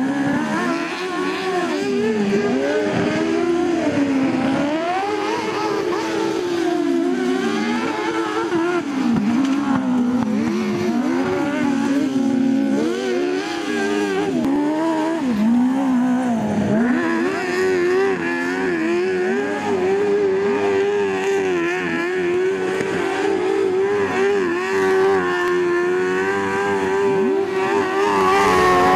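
Off-road racing buggy engine revving up and down again and again as it is driven hard on a grass and dirt course. From about two-thirds of the way through, it is held at high, fairly steady revs, with its pitch wavering quickly near the end.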